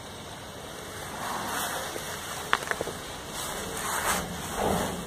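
Faint rustling in swells, with a quick cluster of sharp light clicks about two and a half seconds in.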